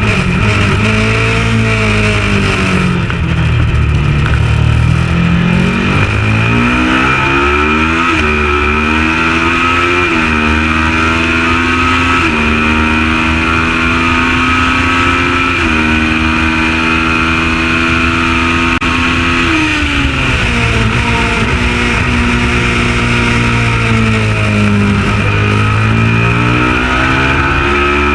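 Kawasaki ER650 parallel-twin race bike engine at high revs under racing load. The pitch falls in the first few seconds as the bike slows, then climbs, stepping up and down through the gear changes. It falls again about two-thirds through and climbs once more near the end.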